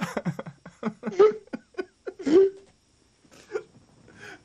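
A man laughing in short, choppy bursts. The laughter dies down about three seconds in, then picks up again more faintly.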